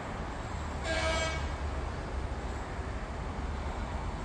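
Short single horn blast, about half a second long, from a Romanian LE 060 EA electric locomotive (EA 298), over a steady low rumble of the train.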